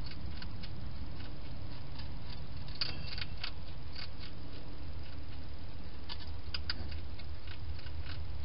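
Hedgehog feeding at a dish: irregular small clicks and crackles, bunched about three seconds in and again past six seconds, over a steady low hum.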